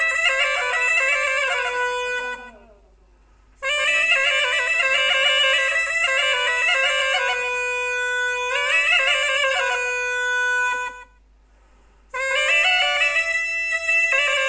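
Kamış reed pipe playing an old Turkish folk tune (türkü), reedy and loud, with a steady low note held under the moving melody. The playing stops twice for about a second between phrases, once about two and a half seconds in and again near eleven seconds.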